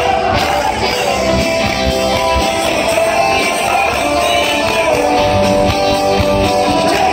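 Live rock band playing loud, with electric guitars and drums over the venue's PA.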